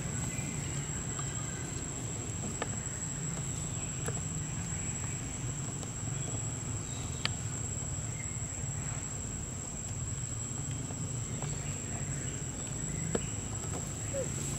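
Forest ambience: a steady, high-pitched insect drone over a low rumble, with a few faint ticks.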